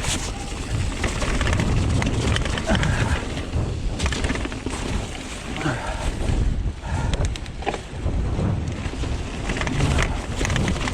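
Strong gusting wind buffeting the microphone, rising and falling, over the rattle and knocks of a mountain bike riding rough trail.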